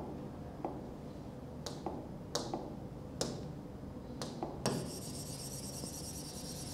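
Stylus strokes on the glass screen of an interactive whiteboard: a string of short taps and scrapes as words are written. From a bit past halfway there is a steady rubbing, as writing is wiped off the screen.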